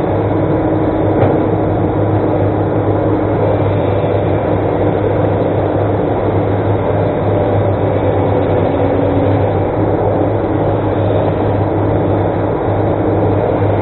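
Excavator's diesel engine running steadily with a deep hum, one faint click about a second in.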